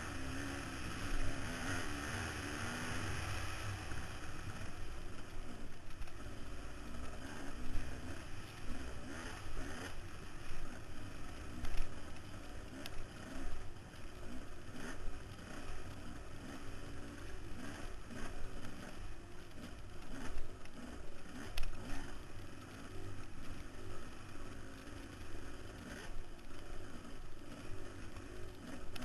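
Off-road motorcycle engine running hard, its pitch rising and falling constantly as the rider works the throttle over rough dirt track. Wind rushes past the helmet-mounted microphone, with sharp knocks and clatter scattered throughout as the bike hits bumps.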